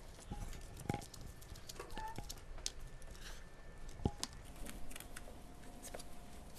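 Wooden skewers stirring coloured baking soda in small plastic cups: irregular scraping and light tapping, with sharper knocks about one and four seconds in.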